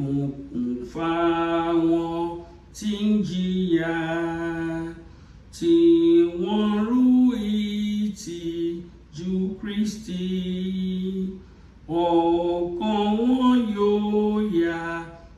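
A woman singing a Yoruba gospel hymn solo and unaccompanied, in long held notes, with two short breaks between phrases.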